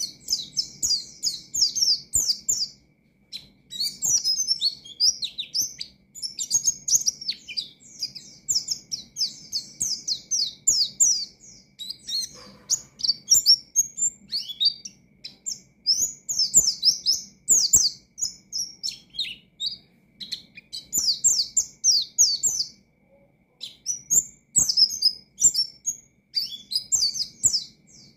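A white-eye (pleci) singing a fast, chattering song of high chirps, in bursts of a few seconds broken by short pauses. A faint steady high tone and a low hum run underneath.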